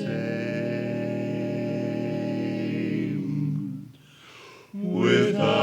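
Barbershop-style a cappella voices in close harmony holding a long sustained chord on "the", which fades out a little under four seconds in; after a short breath the voices come back in together on "same" near the end.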